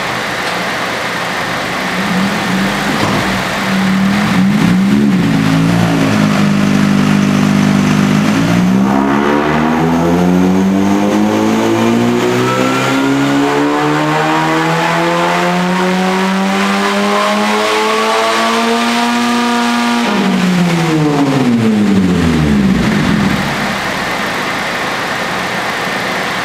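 Supercharged 2.4-litre four-cylinder engine of a 2012–2015 Honda Civic Si on a chassis dyno: it runs steadily at low revs, then the revs climb smoothly for about twelve seconds in a dyno pull and drop quickly back to idle a few seconds before the end.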